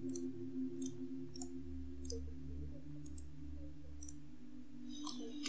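Computer mouse clicking, about seven or eight separate clicks roughly a second apart, over a steady low electrical hum.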